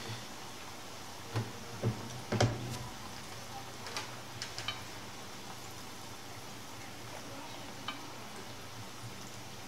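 Floured chicken of the woods mushroom pieces frying in a skillet of hot vegetable oil, a steady sizzle. Over it come sharp clicks of a metal utensil against the pan and plate, several in the first five seconds, the loudest about two and a half seconds in, and one more near the end.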